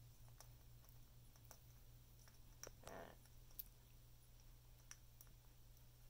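Faint scattered clicks of an Amazon parrot's beak working a dried corn cob, with one short scraping crunch about three seconds in as it whittles off a piece.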